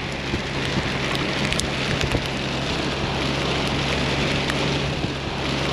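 Hard rain beating on a pickup truck as it drives, with scattered sharper drop ticks. Under the rain runs a steady low hum of engine and road.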